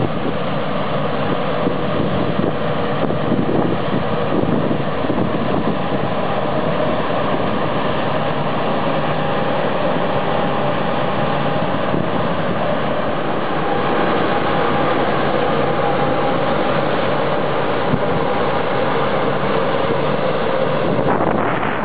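Combine harvester running steadily while harvesting wheat: a continuous machine drone with a faint steady whine in it.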